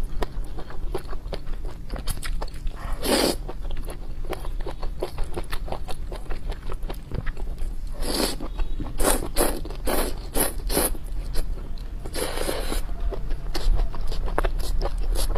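Person slurping spicy glass noodles: a long slurp about 3 seconds in, then more near 8 seconds, a run of short ones around 9 to 11 seconds, and one near 12 seconds. Between them come wet chewing and lip-smacking clicks.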